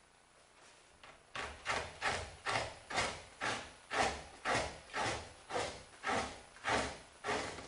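Fleshing knife pushed in quick repeated strokes along a raccoon hide on a fleshing beam, scraping off the fat. There are about two strokes a second, a dozen or more, starting just over a second in.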